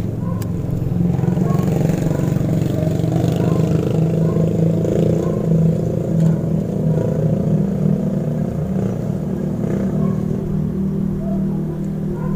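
A motor vehicle's engine running with a steady low rumble, with a slight rise and fall in pitch around the middle.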